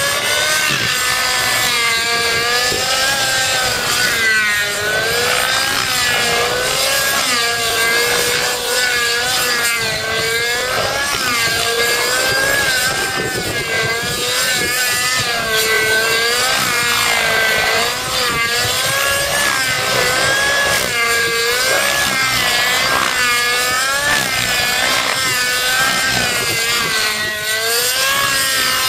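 Thunder Tiger Titan X50 nitro RC helicopter flying 3D aerobatics: its glow engine and rotors give a high buzzing whine whose pitch keeps rising and falling every second or two as the model is thrown through manoeuvres.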